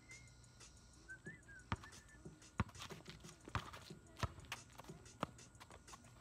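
A basketball being dribbled on pavement: separate sharp bounces, roughly one a second and unevenly spaced, during one-on-one play.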